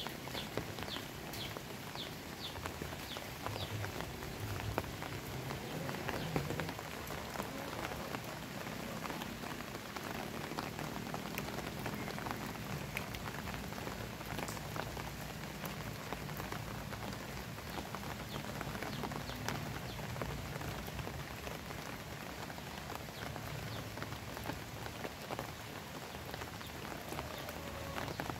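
Steady rain pattering on a wet paved lane and leafy plants, with single drops tapping close by.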